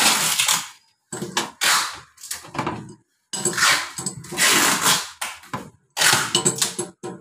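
Wrench on the top nut of a soda machine's 24 V DC solenoid valve, metal scraping and clattering against the valve and stainless-steel frame in a series of short, uneven bursts.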